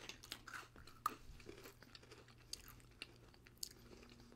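Faint chewing and crunching of crunchy Pepero biscuit sticks, with scattered crisp snaps; the sharpest comes about a second in.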